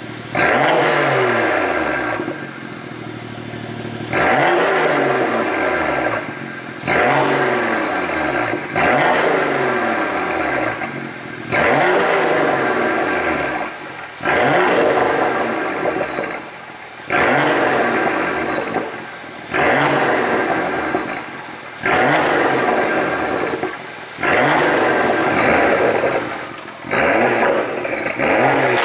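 BMW M2's turbocharged straight-six revved in short blips about a dozen times, every two to three seconds, each rev falling away with exhaust popping and crackling on the overrun from a pop-and-bang ECU tune.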